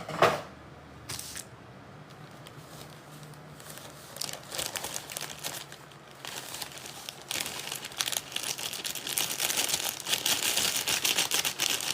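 Packaging crinkling and tearing as it is handled, after a single sharp knock at the start; the crackling turns busy about four seconds in and grows dense from about seven seconds.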